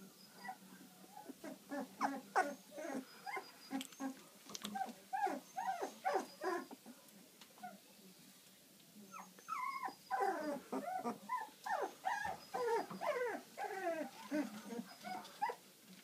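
Newborn Labrador puppies whimpering and squeaking in many short, quick, high cries. The cries come in two spells, with a pause of about two seconds about halfway.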